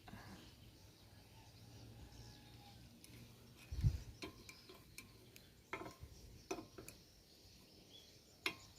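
Kitchen utensils clinking and tapping against a cake mould and dishes, a scatter of short clicks with one low thump about four seconds in.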